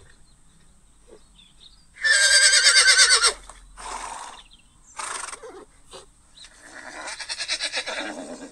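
Horse sound effect: a loud whinny with a quavering pitch about two seconds in, then two short breathy blows and a longer fluttering whinny near the end.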